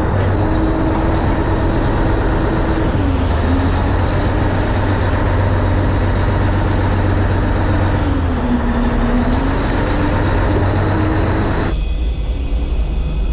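Fishing boat's engine running, a steady drone with a rush of noise over it; its pitch dips briefly twice. Shortly before the end the sound cuts abruptly to a quieter, duller hum.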